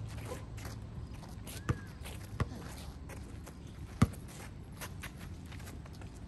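Outdoor pickup basketball: shoes scuffing and stepping on the court, with a basketball bouncing in three sharp thuds, the loudest about four seconds in.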